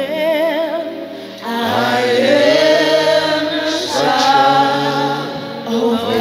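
Slow gospel worship singing: voices holding long notes with wide vibrato, growing fuller and louder about one and a half seconds in.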